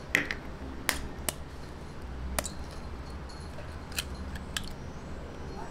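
Eggs being cracked into a glass mixing bowl: a few sharp, separate clicks and taps of eggshell and a fork against glass, spread across a few seconds.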